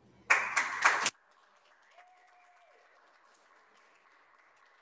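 Audience applauding briefly; the clapping cuts off suddenly about a second in, leaving near silence with a faint hiss.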